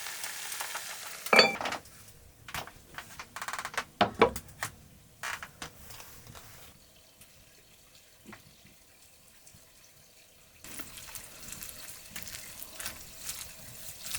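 Food sizzling in a pan, with knocks and clinks of utensils and cookware. The sizzling stops after a loud knock about a second and a half in and comes back near the ten-second mark.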